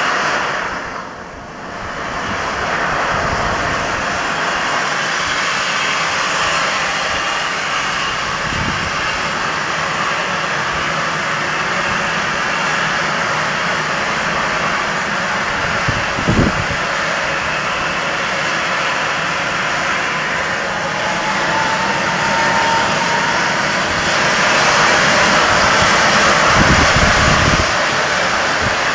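Steam from the A1 Pacific steam locomotive Tornado hissing loudly and continuously as it blows out through the engine shed doorway, with a few deep low thumps along the way.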